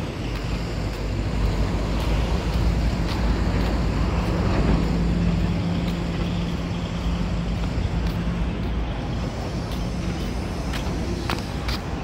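Road traffic: a motor vehicle passes close by, its engine hum growing to a peak about halfway through and then fading, over a steady low traffic rumble.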